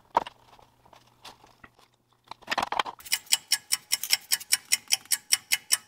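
Faint small clicks and a brief rustle of acrylic parts being handled, then from about three seconds in a fast clock-ticking sound effect, about five ticks a second, marking an on-screen countdown timer.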